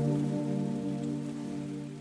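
Rain hissing steadily under a held, soft ambient music chord, both fading out.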